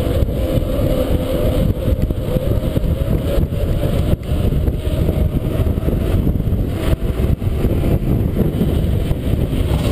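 Steady wind rush buffeting the camera's microphone on a mountain bike descending a tarmac lane at speed, mixed with tyre noise from the road, with a few brief knocks from bumps.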